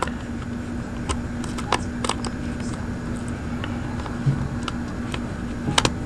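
Scattered light clicks and ticks of a small metal nut and washer being handled and hand-threaded onto a toggle switch's threaded bushing in a plastic radio transmitter case, over a steady low background hum.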